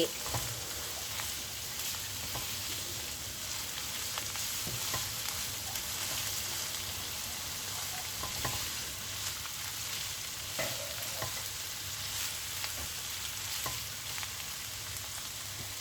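Onions and ginger-garlic paste sizzling steadily in hot oil in a pan, being stirred, with scattered light clicks of the utensil against the pan.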